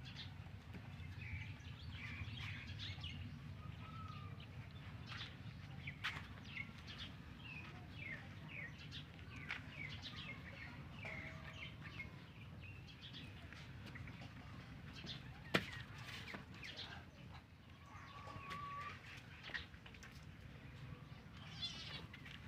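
Small birds chirping over and over, densest in the first half, over a steady low rumble, with one sharp click about two-thirds of the way through.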